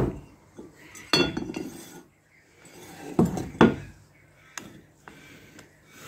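A metal ingot mould gripped in tongs being tipped and knocked against a block to free a freshly cast copper ingot: several separate metallic clanks and clinks, two of them close together about three and a half seconds in.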